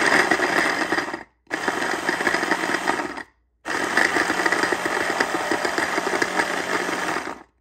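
Immersion blender's chopper attachment pulsed three times, the last run the longest, chopping still-frozen strawberries that are hard going for the blade.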